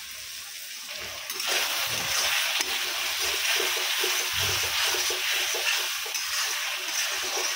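Onion and ginger-garlic masala with turmeric, salt and chilli powder frying in oil in a metal kadhai. The sizzling gets louder about one and a half seconds in as a spatula stirs and scrapes the mixture against the pan.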